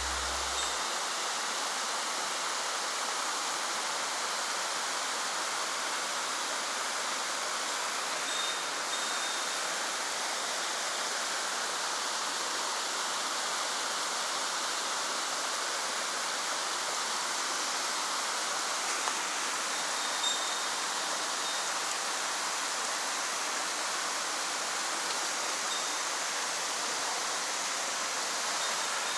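Mountain stream rushing over rocks: a steady, even hiss of flowing water.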